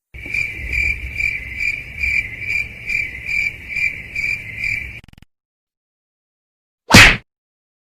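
Crickets chirping, a rhythmic high-pitched trill pulsing about twice a second for about five seconds before it cuts off. This is the stock 'crickets' sound effect for an awkward silence. About two seconds later comes a single short, loud burst of noise.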